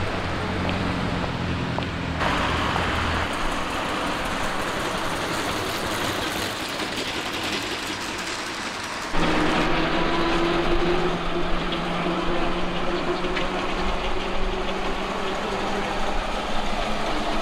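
Classic car traffic on a street: a red Austin-Healey 'Frogeye' Sprite's four-cylinder engine hums as it drives past, then fades. About nine seconds in, the sound jumps abruptly to a louder, steady engine drone with a held tone as more traffic approaches.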